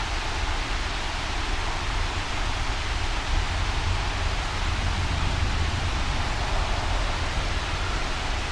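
Steady storm ambience of rain and wind: an even hiss with a constant deep rumble underneath, no thunder clap.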